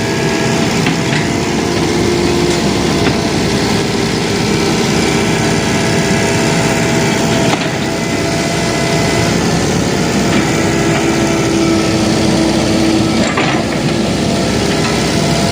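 Sumitomo hydraulic excavator's diesel engine running steadily while it dredges mud from a drainage channel, with a couple of brief knocks.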